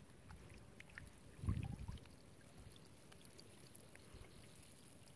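Faint water pouring and trickling, with small scattered ticks and a dull low thump about one and a half seconds in.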